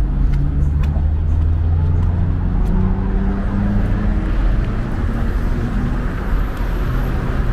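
Road traffic close by: a motor vehicle's engine running with a steady low hum over tyre and road noise.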